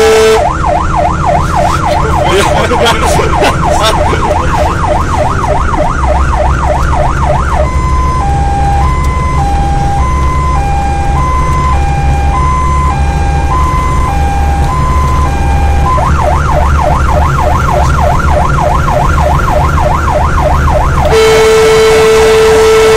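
Fire engine's electronic siren running loud over the truck's engine: a fast warbling yelp, switching after about eight seconds to a two-tone hi-lo and back to the fast yelp about two-thirds of the way through. Near the end a loud steady air-horn blast takes over.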